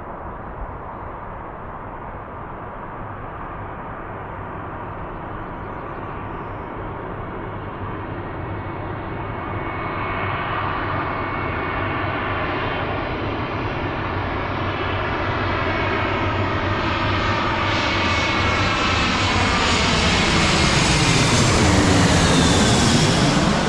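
Airliner on approach growing steadily louder as it comes in and passes overhead, its engine roar and rushing hiss peaking near the end.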